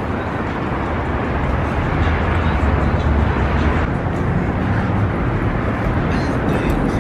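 City street traffic noise: a steady rumble of passing vehicles that swells between about two and four seconds in.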